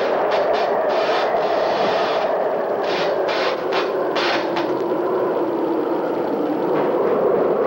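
Hurricane wind and rain blowing hard in a steady rushing noise, with several short hissing gusts in the first half.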